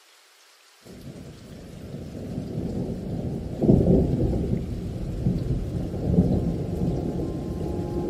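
Thunder rumbling over rain, a recorded storm ambience under the video's background music track. It starts suddenly about a second in, swells to its loudest just before four seconds and keeps rumbling, and sustained music notes begin to come in near the end.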